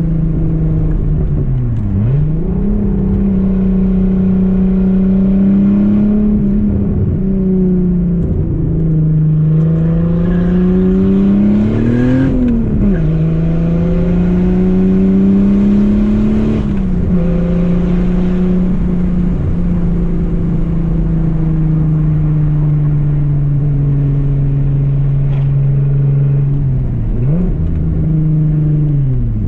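Volkswagen Corrado SLC's VR6 engine driving along, its note climbing with speed and dropping sharply at several gear changes, with a long steady cruising stretch in the second half.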